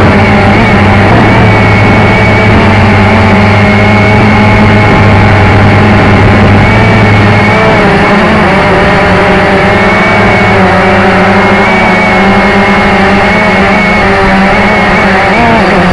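Steady motor and propeller drone of a radio-controlled model aircraft, loud and close from a camera on the model itself, its pitch shifting slightly about halfway through.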